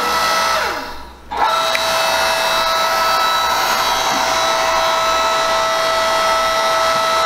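3-horsepower electric motor and hydraulic pump of a 9-ton log splitter running with a steady whine and hiss. The sound fades about a second in and picks straight back up, then runs evenly.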